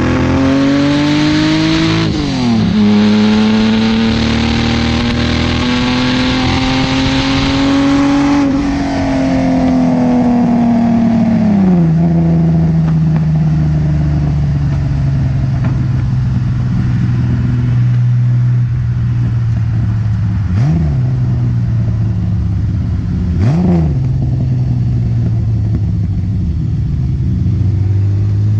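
Datsun 280Z's custom-built L28 inline-six running through an Abarth 240Z muffler. It revs up, drops sharply about two seconds in, then climbs slowly for several seconds. It then falls back to a steady lower engine speed, with two quick throttle blips in the latter half and a rise again at the very end.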